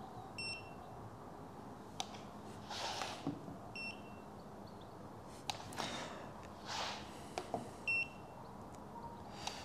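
Paint thickness gauge giving three short electronic beeps, each marking a coating-thickness reading taken on the paint. Faint rustling of handling and movement in between.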